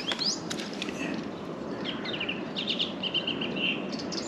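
Small birds chirping and singing in short phrases over a steady outdoor background hiss.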